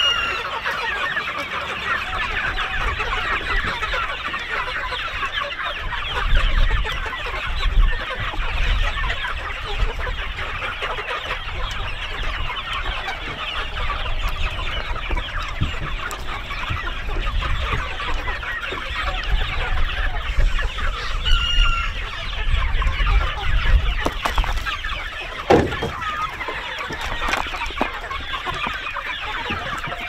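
A large flock of chickens clucking and calling all at once in a dense, unbroken chatter, with an odd louder single call standing out near the start and about two-thirds of the way through.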